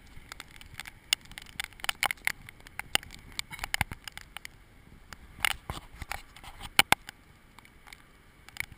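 Irregular sharp ticks of wind-driven rain and icy pellets striking the camera's waterproof housing, over a low, steady rush.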